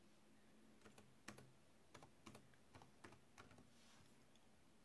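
Faint, irregular key taps on a laptop keyboard, about a dozen spread over a few seconds: text being typed in.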